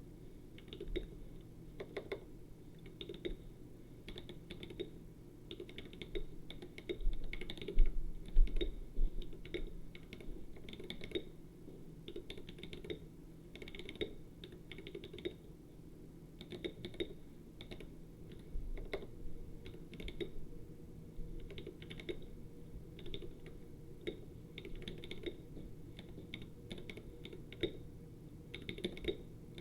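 Typing on a mechanical keyboard with lubed Glorious Panda tactile switches, irregular keystrokes with a poppy sound. About seven to nine seconds in there is a cluster of louder thumps.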